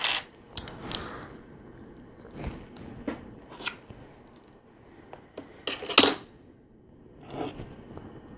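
Plastic LEGO pieces being handled and pressed together: scattered clicks and rustles, with the loudest clatter about six seconds in.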